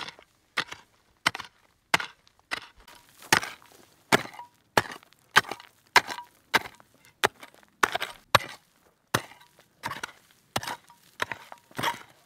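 Mattock striking stony, gravelly soil again and again while digging a hole, a steady rhythm of a little under two blows a second. Some blows leave a short ring as the metal blade hits stone.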